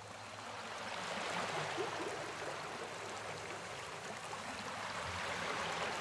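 Whitewater rapids rushing over rocks: a steady, even roar of water that swells in over the first second.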